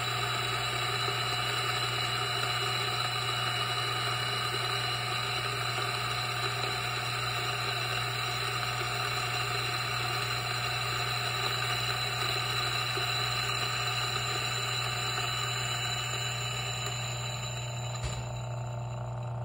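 DF64 single-dose flat-burr grinder with SSP multi-purpose burrs running steadily, grinding coffee beans at espresso fineness, with a constant motor hum under the grinding noise. Near the end the grinding noise thins as the last of the beans pass through the burrs.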